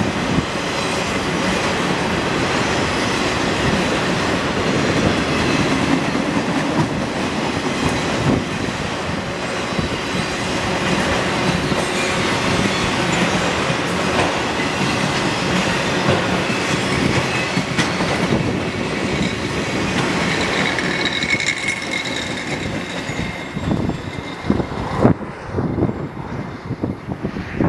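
Freight train of autorack cars rolling past: a steady rumble and rattle of steel wheels on the rails, with clickety-clack over the track and a faint high wheel squeal about two-thirds of the way through. Near the end the last car goes by and the noise breaks up into scattered clacks as it draws away.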